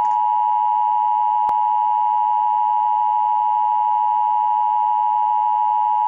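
Emergency Alert System two-tone attention signal, a loud, steady electronic tone held without a break. It announces an emergency alert, here a National Weather Service flood warning. A faint click is heard about a second and a half in.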